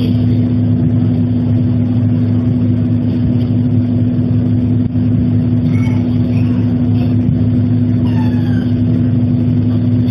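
City bus's diesel engine idling while the bus waits in traffic, heard from inside the cabin: a steady low drone with a constant hum.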